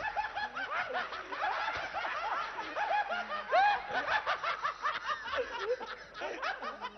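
Theatre audience laughing, many voices overlapping in short laughs.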